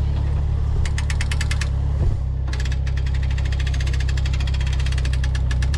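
Sawmill engine running steadily at idle, with two runs of rapid, even mechanical clicking over it: one about a second in and a longer one from the middle on. A single knock comes about two seconds in.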